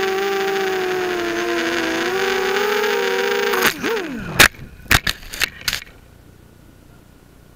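A 250 mm FPV mini quadcopter's motors and propellers whine steadily in flight, their pitch wavering slightly. About three and a half seconds in, the quad crashes: the motor pitch drops sharply, then come several loud knocks as it tumbles into the dirt, and after that there is only a faint hiss.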